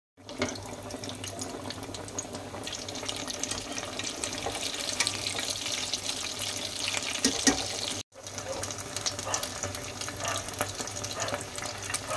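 Sabudana patties deep-frying in hot oil: a steady crackling sizzle with scattered louder pops. It cuts out for an instant about eight seconds in, then carries on.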